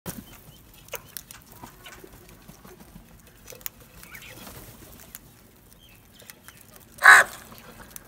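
A flock of house crows feeding on grain: scattered sharp clicks of beaks pecking at the grain and clay bowls, with faint short calls, then one loud harsh caw about seven seconds in.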